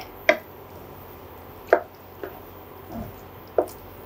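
A wooden slotted spatula stirs wet noodles in a ceramic-coated pan. There are soft squelches and about five short, sharp taps and scrapes of the spatula against the pan.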